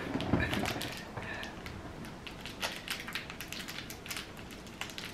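Plastic snack wrapper crinkling as it is handled, a run of irregular small crackles.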